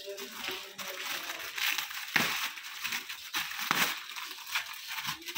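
Clear plastic packaging crinkling and rustling as plastic-wrapped suit pieces are handled and pulled from a plastic bag, in irregular rustles with louder crackles about two seconds in and again near four seconds.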